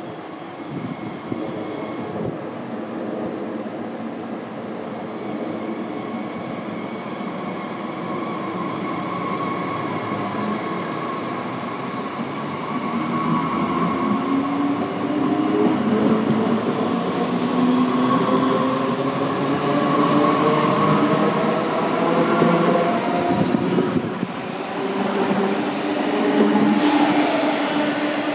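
A DB Class 422 S-Bahn electric multiple unit pulling away from the platform. First comes a rapid high beeping, then the electric traction drive's whine rises in pitch in steps and grows louder as the train accelerates. Near the end a falling tone comes in as another train approaches.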